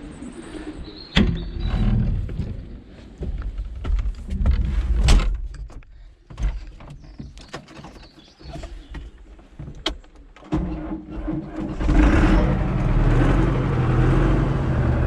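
A series of clunks and knocks, then about ten seconds in a tractor engine comes in and runs steadily.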